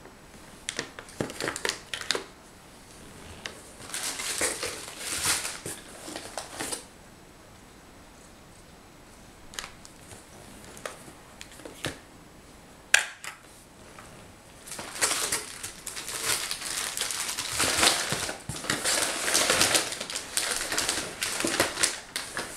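Foil trays and tins of cat food clicking as they are handled and set down, with packaging rustling and crinkling in bursts; one sharp knock about halfway, then a long spell of dense crinkling as a hand rummages in a cardboard box.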